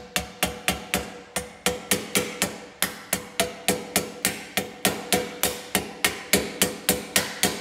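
A rubber mallet striking the clamped inlet end of a chrome slip-on motorcycle muffler in rapid, even blows, about four a second. The metal pipe rings faintly between the blows.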